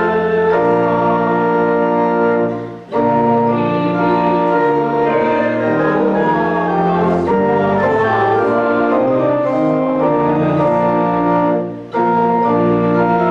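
Church organ playing a hymn in sustained chords that change every second or so, with a brief break between phrases about three seconds in and again near the end.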